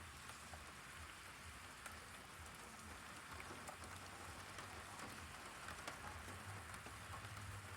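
Heavy rain falling steadily, a dense hiss with scattered individual drop ticks, over a low rumble underneath.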